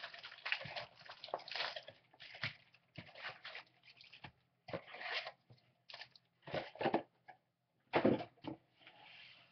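Trading-card packaging crinkling and rustling in irregular short bursts as the packs are handled and opened, the loudest burst about eight seconds in.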